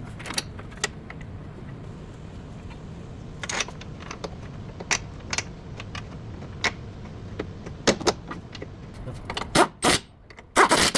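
Scattered sharp metallic clicks and clanks, growing louder and more frequent toward the end, over a steady low hum.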